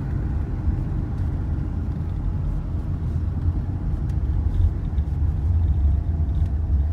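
Steady low road rumble inside a moving vehicle's cabin, the drone of engine and tyres on the highway.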